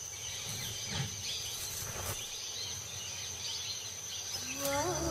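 Forest ambience: a steady high-pitched insect drone with faint bird chirps over a soft background hiss. Near the end, music fades in with sustained, slightly wavering notes that rise and grow louder.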